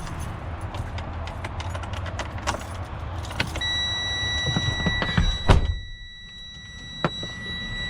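Keys jangling with light clicks in a truck cab. About three and a half seconds in, a steady high electronic warning tone from the Freightliner Cascadia's dash comes on as the ignition is switched on ahead of cranking the new starter. A single heavy thump follows about two seconds later.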